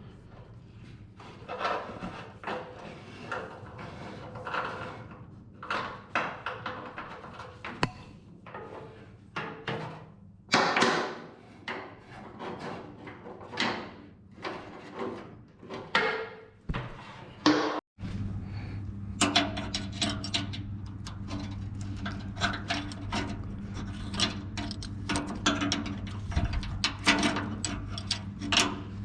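Metal parts and tools being handled during assembly: irregular knocks, clinks and scrapes. After a brief drop about two-thirds of the way in, a steady low hum runs beneath further knocking.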